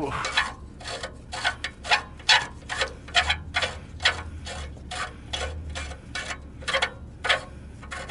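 Socket ratchet clicking in short repeated strokes, about two or three a second, as the upstream oxygen sensor is backed out of the exhaust pipe on a Chevy Silverado.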